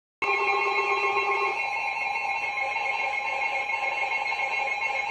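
Emergency Alert System attention tone: a harsh, steady alert sound of sustained tones that starts abruptly. A lower tone drops out about a second and a half in.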